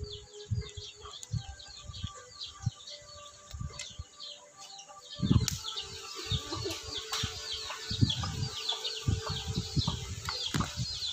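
Small birds chirping over and over in the background, with scattered knocks and clicks from a screwdriver being worked on the metal housing of a two-stroke brushcutter engine; the loudest knocks come about five and eight seconds in.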